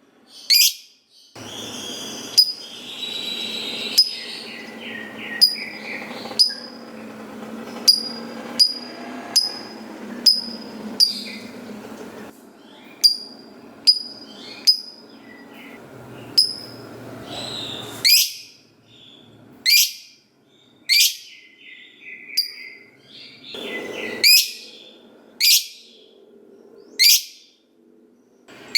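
Lovebird (Agapornis) calling: sharp, shrill chirps that drop in pitch, repeated about once a second. There is a long run of rapid chattering through the first ten seconds and a short burst near the end.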